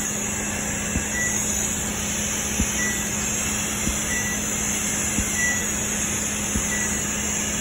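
Laser hair-removal machine running with a steady fan hum. About five times, a little over a second apart, it gives a faint click followed by a short high beep, one for each laser pulse fired on the skin.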